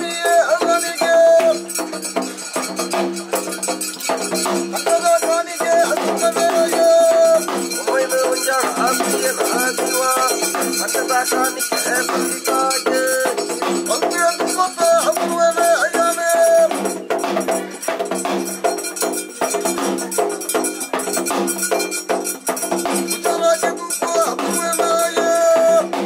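Daiva kola ritual music: a melody of long held notes and short runs over drums, with a dense shaking, jingling rattle.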